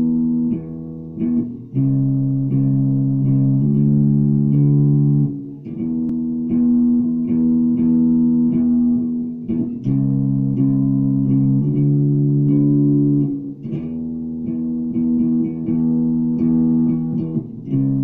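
An Ibanez four-string bass guitar plays a slow melody of several notes held together, changing about once a second. The phrase repeats about every four seconds. It is recorded through a phone's microphone.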